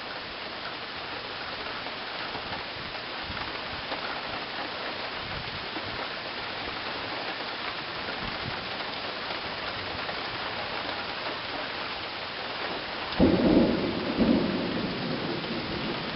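Steady rain falling, with a sudden clap of thunder about thirteen seconds in that rumbles on for a couple of seconds as the loudest sound.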